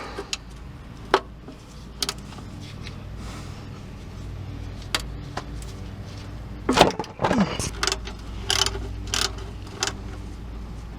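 Scattered metallic clicks and knocks of a wrench working the 13 mm oil drain plug on the oil pan, over a steady low hum, with a quick run of clicks near the end.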